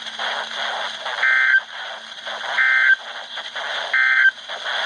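NOAA Weather Radio SAME end-of-message data bursts: three short, identical buzzy digital chirps about 1.4 seconds apart, marking the end of the severe thunderstorm watch alert, over the hiss of radio reception.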